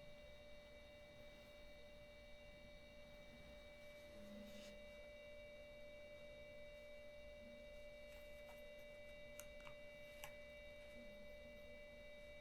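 Near silence, with a faint steady electronic whine made of several pure tones and a few soft clicks.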